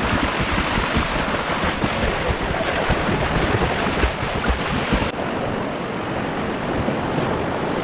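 Rushing river water on a whitewater rafting run, with wind buffeting the microphone.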